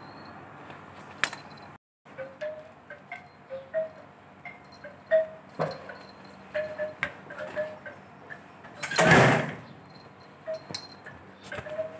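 Light chiming pings sounding irregularly among scattered clicks and taps, with one loud, rough rustling burst about nine seconds in.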